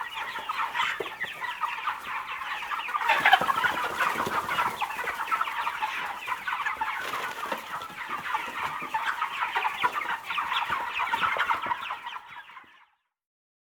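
Farm chickens clucking, many calls overlapping in a dense, continuous chatter that fades out and stops shortly before the end.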